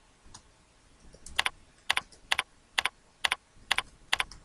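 Computer keyboard keys pressed one at a time, about two keystrokes a second, starting a little over a second in.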